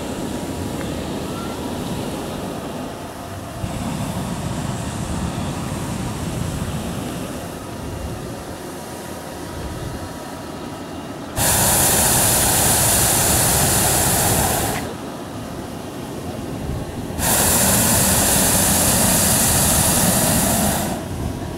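Hot-air balloon propane burner firing in two loud blasts of about three and a half seconds each, starting and stopping abruptly. The first begins about halfway through and the second follows after a gap of about two seconds. A steady, quieter background noise runs underneath.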